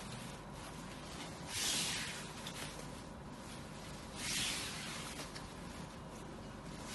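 Kanjivaram silk saree rustling as its pleated folds are handled, with two soft swishes of fabric about a second and a half in and about four seconds in.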